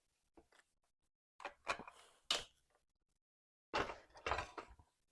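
Short knocks and clunks of tools and parts being handled, in two clusters about two seconds apart, with silence between them.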